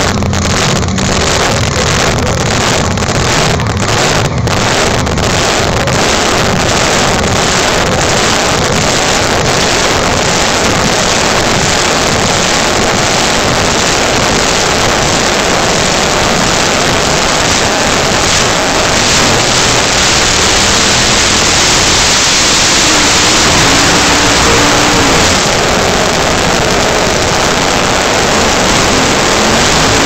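Drag race car engines running loud throughout. For the first several seconds they idle unevenly, pulsing about twice a second. From about twenty seconds in, an engine runs at sustained high revs with the tyres spinning, as in a burnout.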